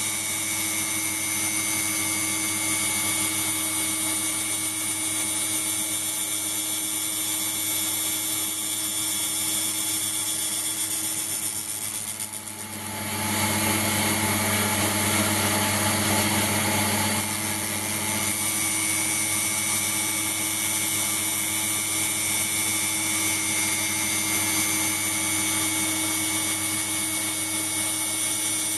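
A tool-post grinder on a lathe, its spindle driven by a 775 DC hobby motor, grinding induction-hardened steel: a steady whine of several held tones over a grinding hiss. About twelve seconds in the sound briefly dips, then runs louder for about four seconds before settling back.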